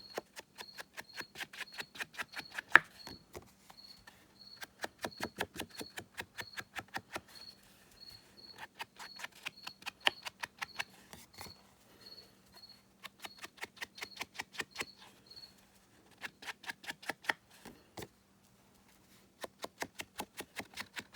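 Foam sponge dauber tapped over and over against an ink pad and the edges of cardstock, quick dabs about four a second in runs broken by short pauses.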